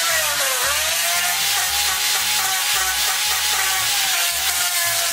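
Makita angle grinder with an abrasive disc sanding the edge of a wooden sled bunk: a loud, steady motor whine mixed with the hiss of the disc on the wood. The whine sags about half a second in as the disc bites, then runs steady.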